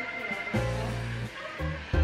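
Background music with held notes over a bass line.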